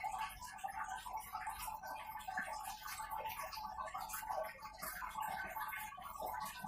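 Close-up chewing and mouth smacking of someone eating a fried vegetable fritter (bala-bala), heard as a dense run of small clicks.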